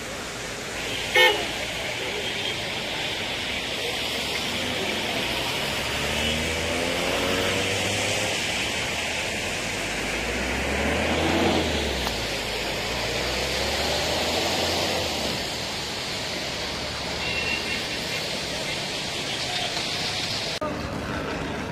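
Road traffic: a steady noise of cars and engines, with car horns tooting, including a short loud toot about a second in.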